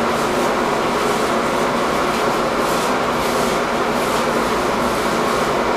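A steady, even rushing noise with a faint hum under it, unchanging in level.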